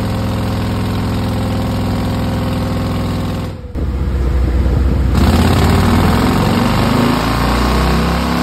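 Harley-Davidson Milwaukee-Eight V-twin running on a chassis dynamometer. It holds steady for a few seconds and breaks off briefly about three and a half seconds in. It then comes back louder, rising in pitch as the throttle opens for a dyno pull.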